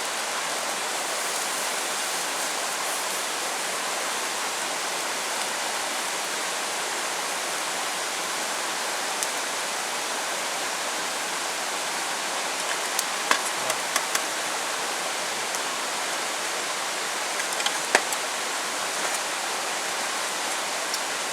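Steady hiss of typhoon rain falling, with a few sharp ticks of louder drops striking nearby, a few times around the middle and about three-quarters of the way through.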